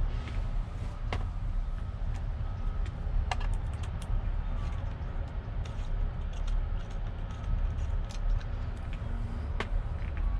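Scattered small metal clicks and taps as an Allen key works loose the bolts holding a steering wheel to its hub, over a steady low rumble.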